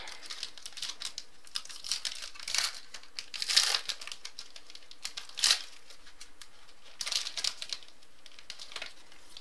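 A trading-card pack wrapper being torn open and crinkled by hand: scattered crackles and rips, with one sharp crack about five and a half seconds in.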